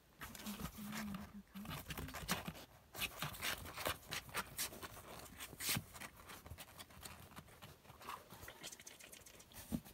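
A kitten's claws scrabbling and scratching on a cardboard box: a rapid, uneven run of scrapes and taps.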